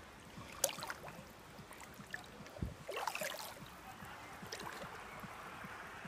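Shallow stream flowing over a sandy, grassy bed with a steady babble. Brief splashing sounds come about half a second in, around three seconds in, and again a little later.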